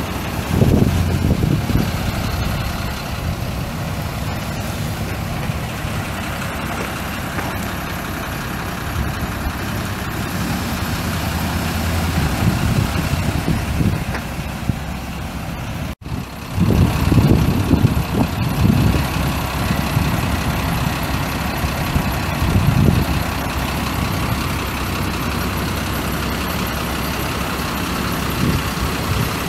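Chevrolet 3500 truck's 5.7-litre gasoline V8 idling steadily, with irregular bursts of low rumble at times. The sound cuts out for an instant about halfway through.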